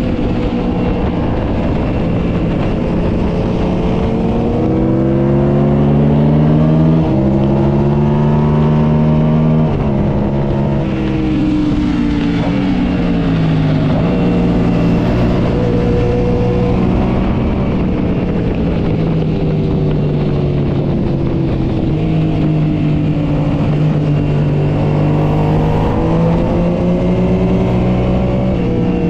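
Motorcycle engine heard onboard at speed, its pitch climbing and falling over and over with several sudden jumps in pitch as gears change, over a steady rush of wind.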